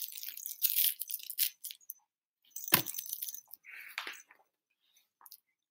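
Paper rustling and a few clicks as the pages of a picture book are handled and turned. There is a crackly rustle over the first two seconds and a sharp click near the middle.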